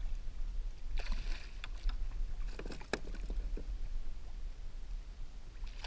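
Water splashing and lapping against a plastic kayak hull over a steady low rumble, with scattered sharp clicks and knocks about a second in and again near three seconds.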